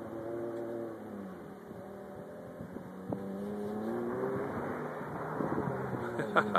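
Jeep engine revving as it drives through wet mud. Its pitch drops about a second in, then climbs again around four seconds in.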